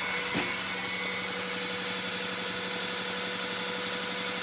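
Cordless drill running at a steady speed, turning a Wolfcraft drill-driven transfer pump that is pumping diesel. It makes an even, unchanging motor hum.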